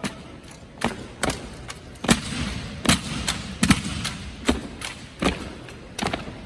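Drill team working rifles in unison: a dozen or so sharp slaps and knocks of hands and rifle stocks, mixed with boot stomps on the floor, at an uneven rhythm and echoing briefly in a large hall.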